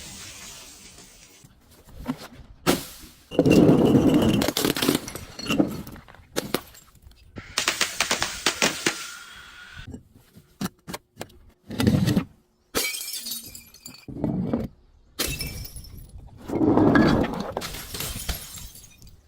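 Glass being smashed and crushed, breaking and crunching in several separate bursts with sharp cracks between them.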